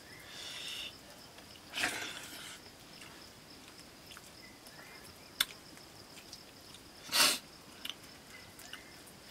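A hand mixing food in an iron karahi: soft wet squishing, a few small clicks against the pan, and two louder short scraping rustles, about two seconds and seven seconds in. A faint high steady tone runs underneath.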